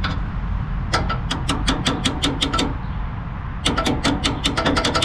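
Rapid clicking in two runs, the second faster, from the electrical circuit of the mower's cooling fan, such as a relay chattering, over a steady low hum. The fan has stopped running, and the owner suspects a bad wire.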